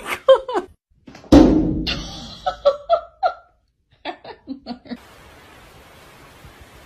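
People laughing in short bursts, with a loud thump about a second in. From about five seconds in there is only a steady hiss.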